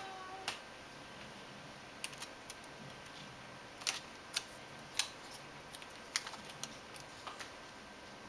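Irregular sharp clicks and taps of a laptop LCD panel and its metal hinge brackets being handled and fitted on a workbench, the loudest about four and five seconds in.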